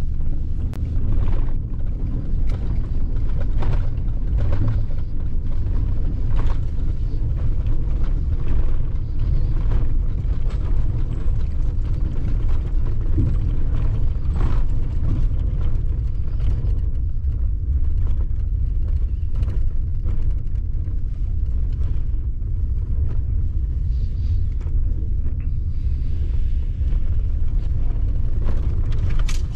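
Pickup truck driving slowly over a rough dirt bush road, heard from inside the cab: a steady low rumble of engine and tyres, with frequent short knocks and rattles as the truck jolts over bumps.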